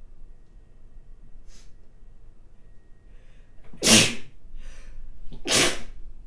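A woman sneezing twice, forceful spraying sneezes about a second and a half apart, the first the louder, with a short breath drawn in before it.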